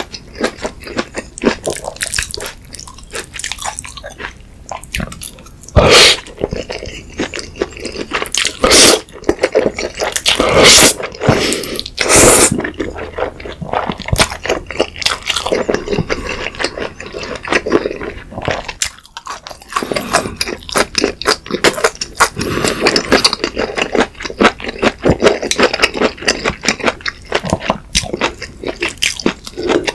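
Close-miked eating of sauce-coated instant noodles: wet sticky squishing and chopstick clicks as the noodles are mixed and picked up, several loud slurps in the first half, and chewing throughout.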